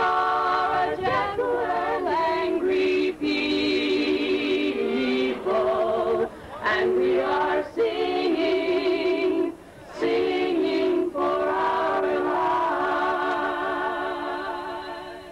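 A choir singing long held notes with vibrato in harmony, breaking briefly between phrases, then fading out near the end.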